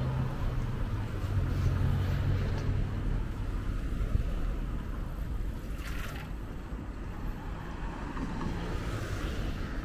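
Roadside traffic noise: a low motor-vehicle engine hum, strongest in the first three seconds and then easing, over steady road noise, with a brief hiss about six seconds in.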